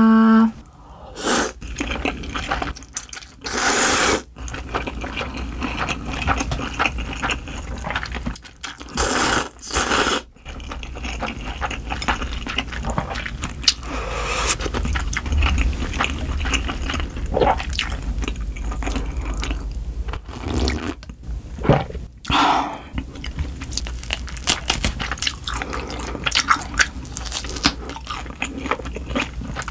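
Close-miked eating of spicy cold buckwheat noodles in broth: liquid sloshing and dripping as the noodles and sauce are stirred in a glass bowl, sips of broth from a ladle, and chewing, with several loud noisy bursts.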